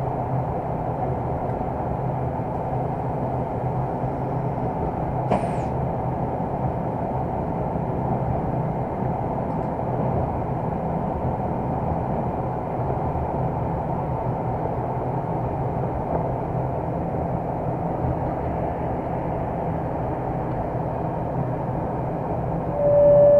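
Steady running rumble inside the cab of a 060-DA (LDE2100) diesel-electric locomotive under way: its Sulzer diesel engine and the wheels on the track. A single sharp click comes about five seconds in.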